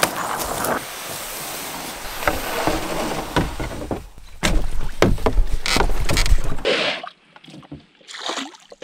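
Canoe being put in and boarded at the river's edge: rustling through grass, then a run of knocks and clunks of paddle, gear and body against the hull over a deep rumble, which die down near the end.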